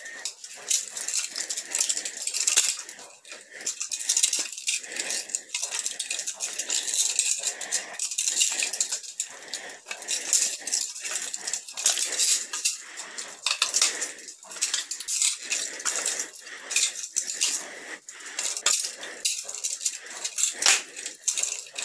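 A toy dagger rattles and clicks in the hand as it is flipped and twirled, a fast, irregular clatter with no steady rhythm.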